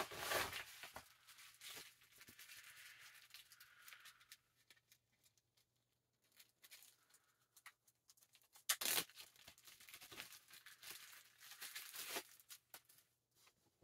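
Clear plastic packaging around an action figure being torn open and crinkled by hand. A stretch of crinkling comes first, then a pause, then a sharp tear about nine seconds in, followed by scattered crackles.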